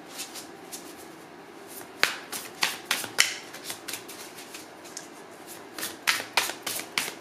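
A deck of tarot cards being shuffled by hand, in three short bursts of quick crisp card snaps with quiet pauses between.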